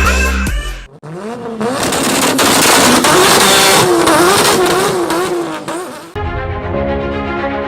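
Loud electronic music breaks off about a second in. A car is then heard revving hard for about five seconds, with a wavering high squeal over it. Steady theme music starts near the end.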